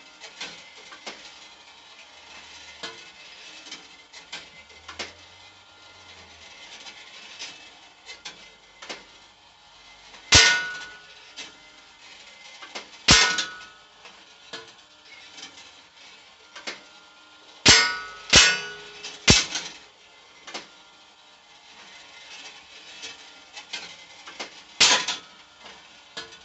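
Air rifle shots, six in all, each with a ringing metallic clang as the pellet strikes a steel target. Three come in quick succession a little past the middle.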